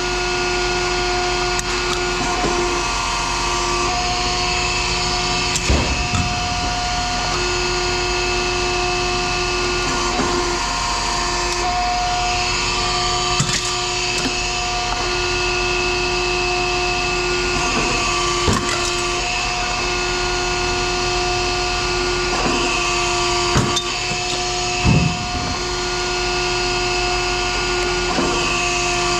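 Steady machinery noise with a humming tone that cuts in and out every few seconds, and a few short knocks scattered through it.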